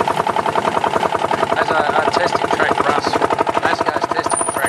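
Rail section car (speeder) engine running steadily, its exhaust a rapid, even popping.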